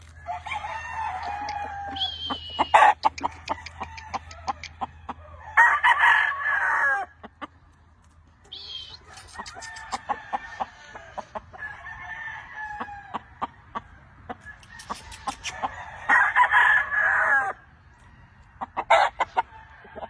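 Several gamefowl roosters crowing in turn, the loudest crows about six seconds in and again about sixteen seconds in, with fainter crows from farther roosters between them. Short sharp clicks and knocks run throughout.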